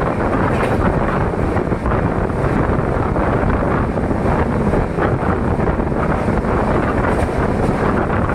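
Gorakhpur Superfast Express in motion: a steady, loud rumble of the coach running on the track, mixed with wind noise on the microphone.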